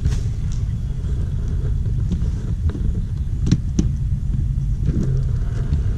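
Car driving: a steady low rumble of road and engine noise, with a couple of light clicks about three and a half seconds in.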